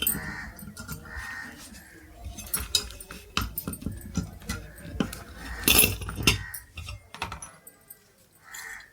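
Short high squeaks repeating about once a second, then a run of sharp metallic clicks and knocks from tools and metal parts being handled.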